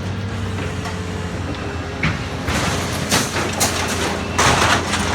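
A grapple claw crushing a refrigerator: sharp crunches and scrapes of metal, five or so, starting about two seconds in and heaviest near the end, over the steady low hum of the machine's engine.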